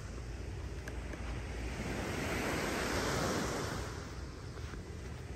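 Gulf of Mexico surf washing up the beach, swelling about halfway through and then easing off, with wind buffeting the phone's microphone.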